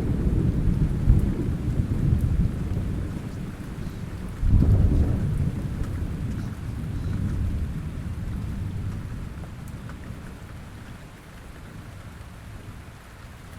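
Thunder rumbling over falling rain, with a second roll of thunder breaking about four and a half seconds in, then the rumble slowly dying away.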